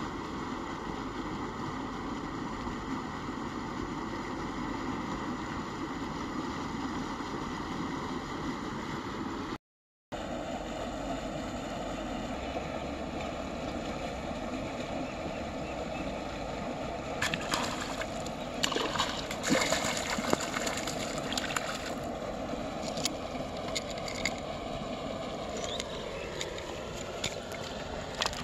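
Steady wind noise on the microphone. About two thirds of the way in comes a few seconds of splashing and sloshing as a hooked fish thrashes at the surface while it is pulled in.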